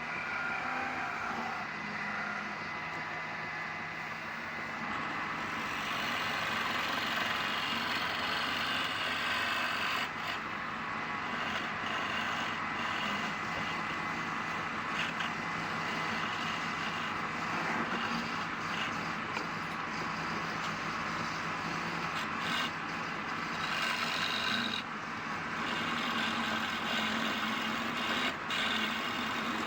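Wood lathe running while palm wood is turned: a steady motor hum under a continuous hiss of tool or abrasive on the spinning wood, with a few brief dips.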